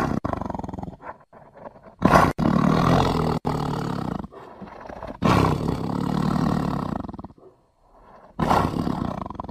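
Tiger roaring in a series of four deep roars, each about one to two seconds long, with short pauses between them; the last one runs on past the end.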